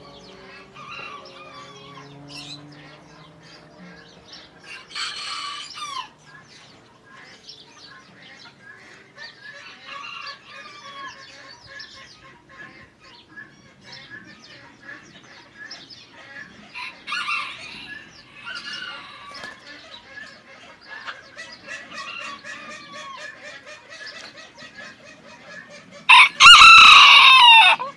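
Serama bantam rooster making soft clucks and small calls, then crowing once, loudly, near the end.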